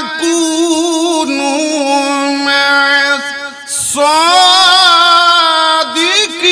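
A male qari reciting the Quran in the melodic tajweed style, holding long ornamented notes that waver in pitch, with a short pause for breath a little past halfway.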